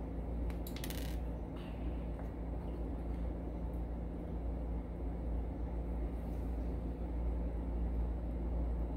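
A quick cluster of light metallic clicks about a second in, and a fainter click just after, from small Evva 3KS lock parts being handled with metal tweezers. Under them a steady low hum runs throughout.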